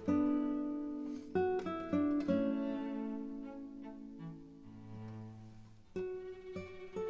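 Background music on plucked strings: slow notes struck and left to ring, thinning out in the middle and picking up again about six seconds in.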